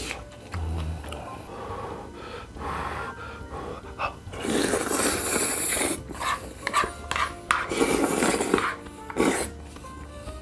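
A person slurping instant ramen noodles and broth, with long, loud slurps about four and a half seconds in and again around eight seconds, and shorter ones between.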